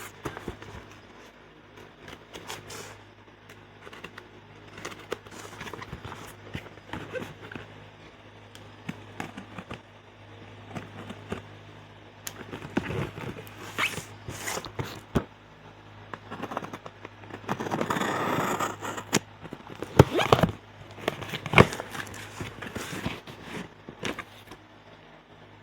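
Plastic model kit packaging being handled: rustling and crinkling of plastic and cardboard with scattered clicks and taps. A longer scraping rustle comes about eighteen seconds in, followed by two sharp clicks.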